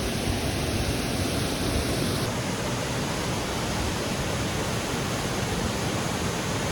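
A small waterfall running steadily: an even, continuous rush of falling water.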